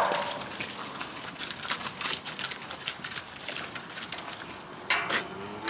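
Dairy cows' hooves clopping irregularly on a concrete floor as the herd walks through, with a brief rushing burst about five seconds in.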